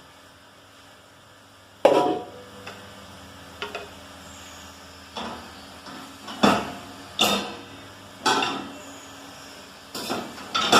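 Dinner plates being set into a dishwasher's lower rack, clattering against the rack and each other in about eight sharp knocks spaced a second or so apart.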